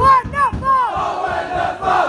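Football supporters chanting together: a few short, punchy shouted syllables in the first second, then a more held line.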